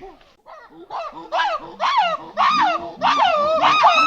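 Monkeys giving a run of repeated calls that rise and fall in pitch, about two a second, growing louder and overlapping from about three seconds in.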